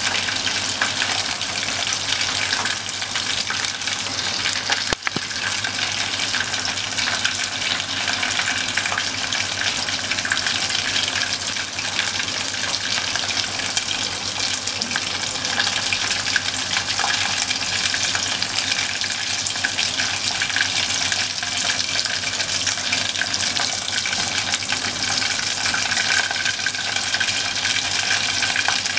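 Bone-in beef short ribs deep-frying in a pot of hot oil: a steady, dense sizzling hiss.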